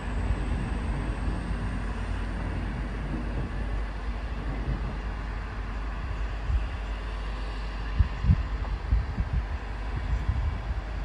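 Diesel trains' engines running at a station, a steady low rumble under open-air hiss, as a train pulls away into the distance. Several low wind buffets hit the microphone in the second half.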